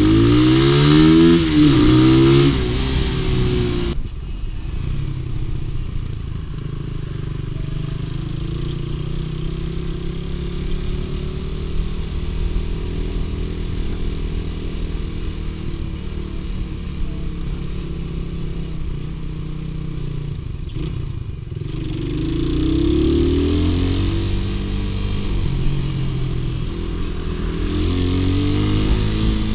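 Suzuki Raider 150 (Satria F150) motorcycle's single-cylinder four-stroke engine, heard from the rider's seat. It pulls away with its pitch rising in steps through the gears, then runs steadily at cruising speed. It climbs through the gears again about two-thirds of the way through and once more near the end.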